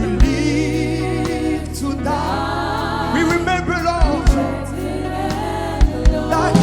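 Live gospel worship music: a singer's drawn-out lines with vibrato over a sustained band backing, with a few low drum hits.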